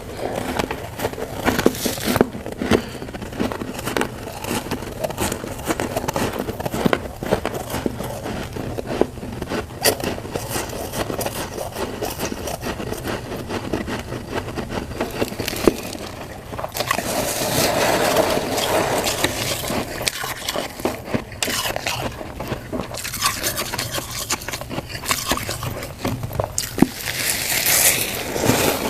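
Crunchy freezer frost being bitten and chewed, a dense crackling crunch with scraping, louder for a couple of seconds past the middle and again near the end.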